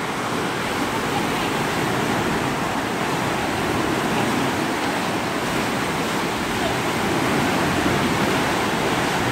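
Water gushing through a concrete sluice and churning white in the channel below: a steady, even rush of turbulent water.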